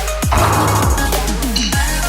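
Background electronic music with a heavy bass, its low notes sweeping downward in pitch.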